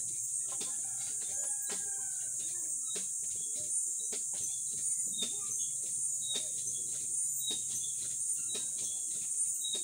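A rooster crowing once, an arching call about a second in, over a steady high-pitched drone and scattered light clicks and knocks.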